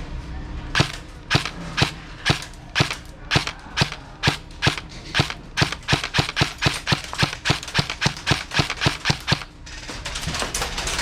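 A long string of sharp airsoft cracks: BBs from an airsoft rifle striking and ricocheting off hard surfaces close by. The player takes these for ricochets. The cracks come about two a second at first, quicken to about four a second, then stop about a second before the end.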